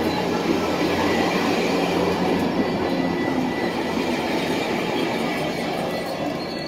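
Metrolink bilevel passenger coaches rolling past close by: a steady rumble of steel wheels on rail with a faint, steady high tone above it, easing off slightly near the end.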